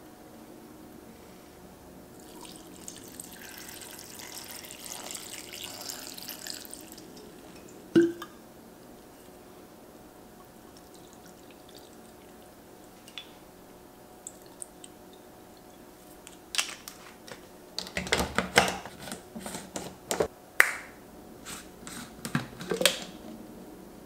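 Wine being poured from a bottle into a plastic blender cup, a soft splashing pour lasting a few seconds, followed by a single sharp knock. Near the end comes a run of clicks and knocks.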